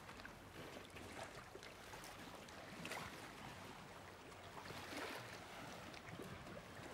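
Faint water ambience: small waves lapping, with scattered light splashes and ticks.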